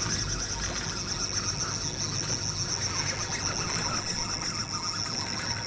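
Spinning reel's drag giving a steady high-pitched buzz as line peels off under a running fish: a hooked skipjack tuna taking line as it heads for the bottom.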